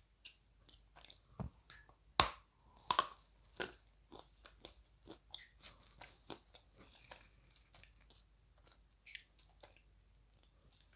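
Pieces of dry edible clay being bitten and chewed close to the microphone. Sharp crunches, the loudest a little over two seconds in and again about three seconds in, are followed by a run of smaller, fainter crunches.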